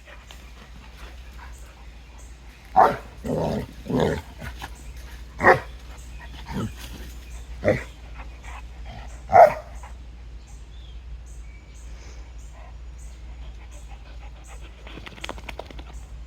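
Dog barking: about seven short, loud barks spaced roughly a second apart.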